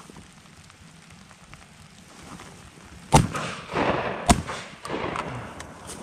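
Two shotgun shots about a second apart.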